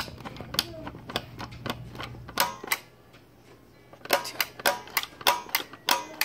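Repeated plastic clicks from the red push button of a Don't Wake Dad board game being pressed, about three presses a second. One run fades out near the middle, and a second run of about eight presses starts after a short pause.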